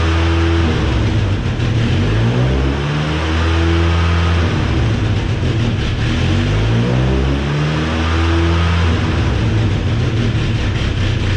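Ford Ranger pickup's fuel-injected engine being revved, its pitch rising and falling three times. It is running rich with at least one fuel injector stuck open.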